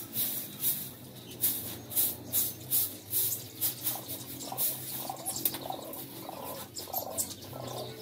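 Straw hand broom sweeping a straw-and-dirt cage floor in quick repeated strokes, busiest in the first half. Birds chirp in the background in the second half.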